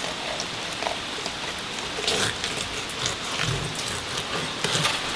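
Fillet knife crackling and clicking as it slides along a northern pike's backbone and cuts through the small rib and pin bones, most busily in the second half. Under it runs a steady hiss like rain.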